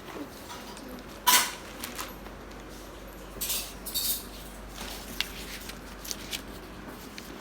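Metal parts and fittings of an exercise bike being handled during assembly: one sharp knock about a second in, then a few lighter clinks and rustles.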